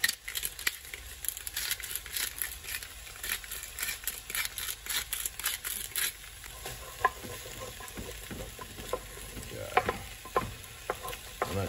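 Hand pepper grinder twisted over a pan, a rapid crunching click for about six seconds, over the sizzle of vegetables and tomato paste frying. Then a wooden spoon stirs the pan, with scattered knocks and scrapes against it.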